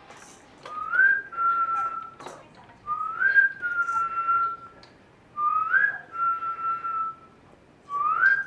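A short two-part whistle, a quick rising note then a held steady note, repeated four times about every two and a half seconds.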